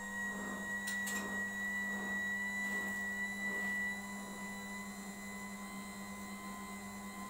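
Electric home oil press machine running: a steady motor hum with a high whine as the feed arm turns through the seeds in the hopper.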